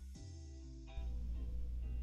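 Background music, softer for about the first second and then coming back in fuller.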